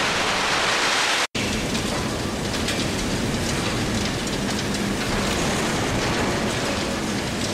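Loud, steady industrial plant noise: a bright hiss that breaks off sharply about a second in, then a rougher rumbling din with a faint steady hum and scattered small ticks.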